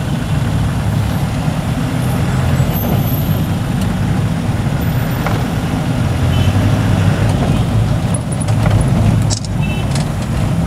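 Car engine and road noise heard from inside the cabin while driving in dense city traffic: a steady low rumble. A few faint, short high-pitched notes come through in the second half.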